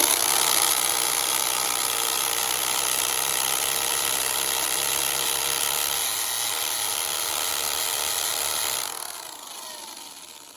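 Tool Shop hammer drill with a masonry bit drilling into brick, running steadily at full speed for about nine seconds. Near the end the trigger is let go and the motor winds down with a falling whine.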